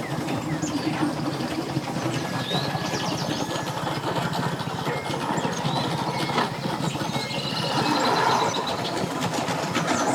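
A boat's engine running steadily, a constant low hum under a noisy wash of outdoor sound.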